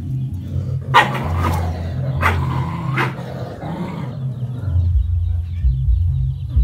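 A dog barking three times, about a second apart, over a low steady drone.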